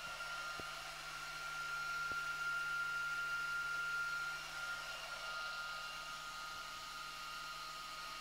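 Cooling fans of a 2 m LDMOS pallet amplifier running steadily: a whirring hiss with a high, steady whine over a low hum, swelling for a couple of seconds near the middle.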